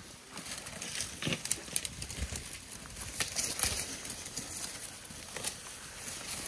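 Dry winter bush crackling and rustling, with irregular snaps of twigs and grass, as African elephants browse and walk through it at close range.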